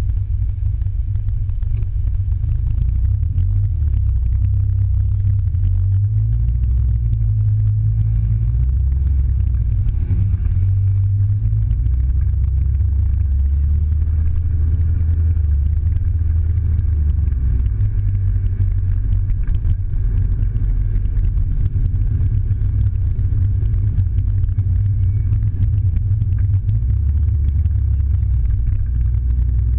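Low engine and road rumble of a Mazda6 heard from inside its cabin while driving, the engine note shifting in pitch a few times as the car changes speed.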